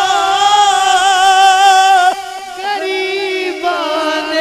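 A man's voice chanting a long, drawn-out melodic phrase into a microphone, holding notes with a wavering, ornamented pitch. About two seconds in it drops quieter through a few short notes, then settles on a slightly lower held note.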